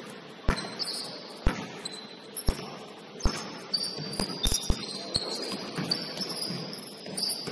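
Basketball bouncing on a hardwood gym floor: about one bounce a second at first, then quicker and irregular from about three seconds in, with short high squeaks of sneakers on the court.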